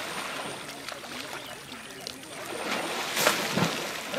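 An elephant splashing in a river, thrashing and throwing water over itself, the splashing getting louder about three seconds in.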